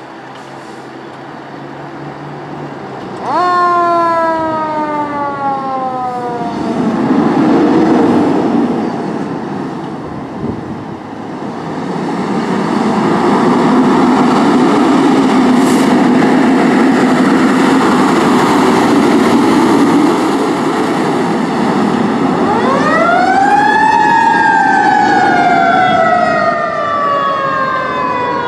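Fire engine's siren sweeping sharply up and winding slowly down, twice, with a long, loud stretch of siren and engine noise between, as the 2017 KME Severe Service pumper pulls away on an emergency run.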